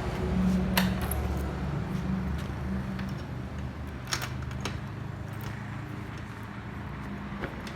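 A motorcycle engine running low and steady, gradually fading, with a few sharp metallic clinks over it.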